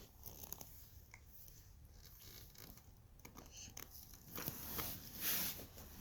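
Faint rustling and small clicks, with a louder rustle about four to five and a half seconds in.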